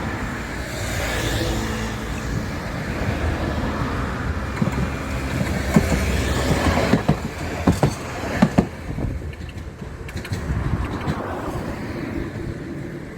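A rail vehicle passing with a steady rumble. From about six seconds in comes a short run of sharp wheel clacks over rail joints, several of them in quick pairs.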